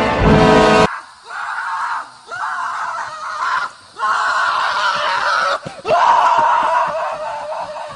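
Music cuts off about a second in, followed by four or five loud, harsh screams with short breaks between them.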